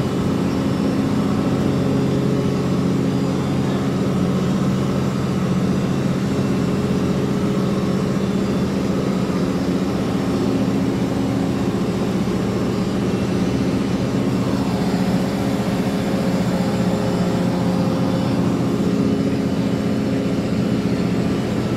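Vessel's diesel engine running steadily, a deep even drone with no change in pitch.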